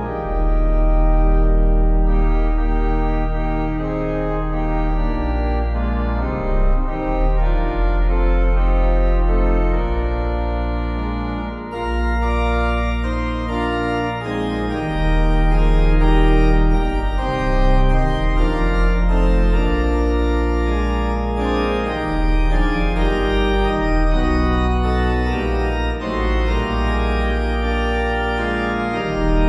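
Background music of slow, long-held organ chords over a deep bass.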